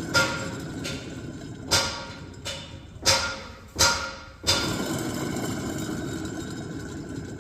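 Bus air-conditioning compressor with bad bearings, running with a steady rough mechanical noise. About six sharp knocks come in the first four and a half seconds, then the running goes on alone.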